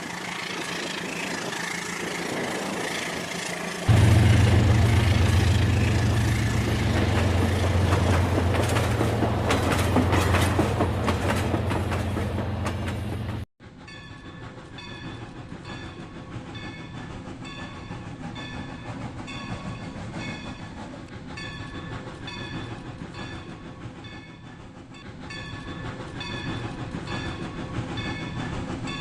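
Rail King toy train set running on its track, with a low motor hum and the train's electronic sound effects. The sound breaks off sharply about halfway through and carries on quieter, with short repeating tones.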